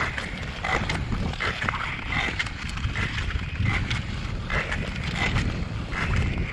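Ice skate blades striding and gliding on lake ice, a scraping hiss with each push repeating about every three-quarters of a second, over a steady low rumble.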